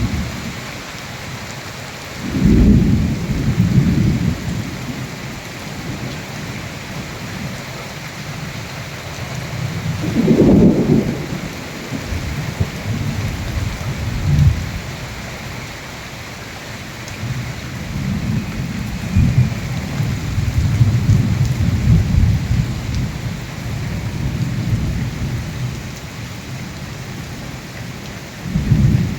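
Heavy cyclone rain falling steadily. Deep low rumbles swell up several times over it, the longest running for several seconds a little past the middle.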